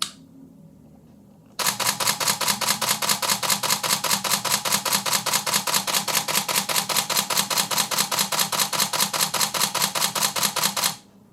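Canon 5D Mark III's shutter and mirror firing: one single click at the start, then from about a second and a half in a continuous burst of rapid, even clicks at about six frames a second, lasting about nine seconds and stopping abruptly. The camera is being stress-tested after repair of a power fault.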